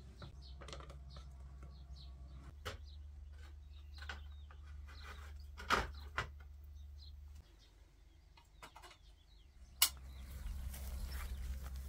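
Chickens clucking in the background, with light knocks as a small mirror is hung on a nail in a mud-plastered wall; the loudest knock comes about six seconds in, and a sharp click follows near the end.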